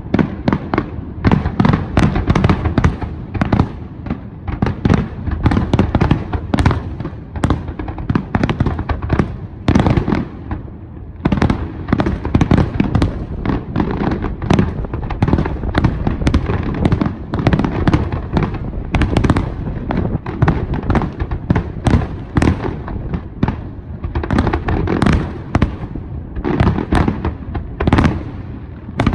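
A fireworks display with shells bursting in rapid, overlapping succession: a near-continuous barrage of booms and crackles, easing briefly about ten seconds in and again near the end.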